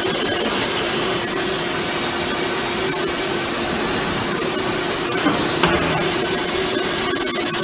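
The drilling spindle of a DAMA GMDC-3100 CNC drilling and cutting machine bores into metal plate under external mist cooling. The sound is a steady hiss over a steady hum, with two short knocks about five and a half seconds in.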